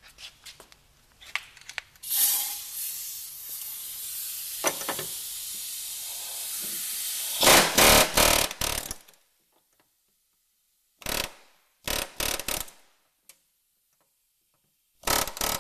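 A drill runs with a steady high hiss for about five seconds, drilling out rivets in the snowmobile's running board rail. It ends in a cluster of loud sharp rattling bursts. Later there are a few short scraping bursts of metal tool work.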